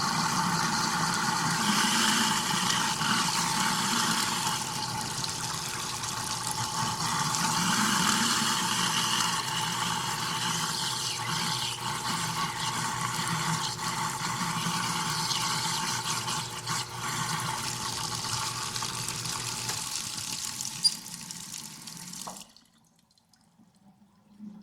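Kitchen garbage disposal running with tap water flowing into the sink: a steady rushing churn. A sharp click comes shortly before the sound cuts off suddenly near the end.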